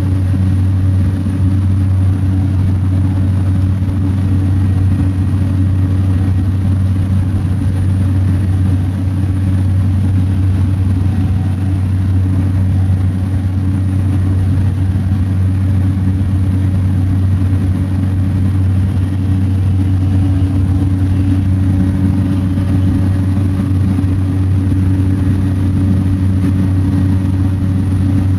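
Small propeller plane's engine and propeller droning steadily, heard from inside the cabin during the climb after takeoff.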